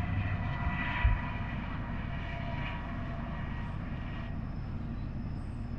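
A distant passing train: a steady rumble with faint steady tones that fade out about four seconds in.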